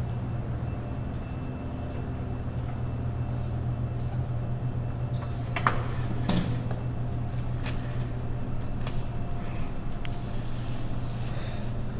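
Steady low hum, with two sharp knocks a little past halfway and a few fainter clicks after them.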